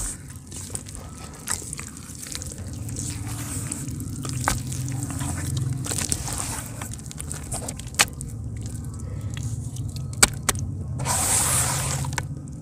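Hands squeezing and kneading thick wet mud: continuous squelching with scattered sharp wet pops, and a longer swishing slosh near the end.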